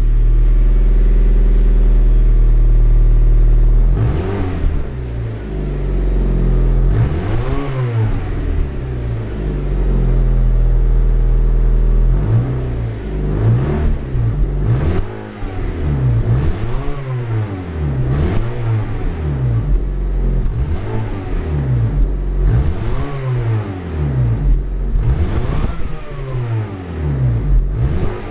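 Car exhaust fitted with clip-on turbo sound whistles on its twin tailpipes, on a 1500 cc engine. For the first four seconds the engine is held at raised revs with a steady high whistle. It is then revved in repeated short blips, and each rise and fall of the revs brings a brief whistle.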